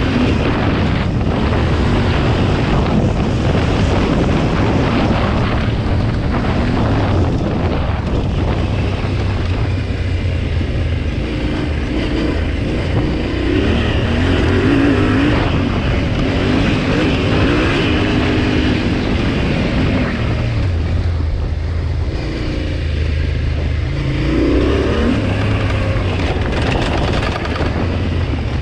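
2020 Yamaha Ténéré 700's 689 cc parallel-twin engine under way on a dirt track, its revs climbing and dropping back several times as the bike accelerates and shifts, over a steady rushing noise.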